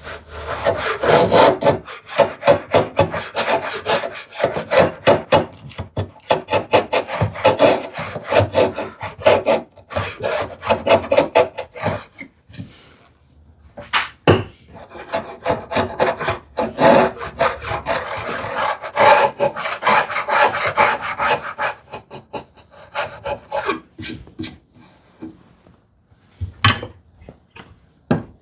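Veritas router plane taking fine shavings off a wooden tenon cheek in quick, repeated scraping strokes, creeping up on the tenon's final thickness. The strokes come in two long runs with a short pause between them, then only a few scattered strokes near the end.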